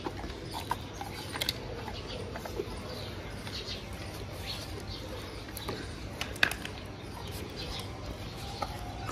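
Scattered faint clicks and taps, with birds calling in the background.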